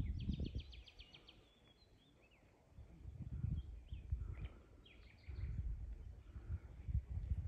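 Small birds singing: a rapid high trill in the first second, then scattered short chirps, over an irregular low rumble of wind noise.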